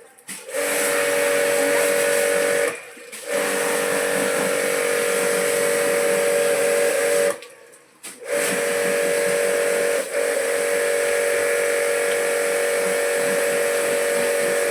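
Electric water spray gun running: a steady high motor hum over the hiss of the water spray, cutting out briefly a few times and starting again.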